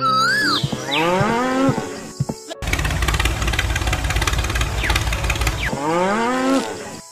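Cow mooing sound effect, then about three seconds of a tractor engine running, then another moo near the end.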